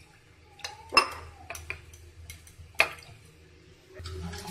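Steel cookware knocking and clinking as it is handled: a scattering of sharp metal knocks, the loudest about a second in and just before three seconds. Near the end a softer, fuller sound starts as rice and water are tipped into an aluminium pressure cooker.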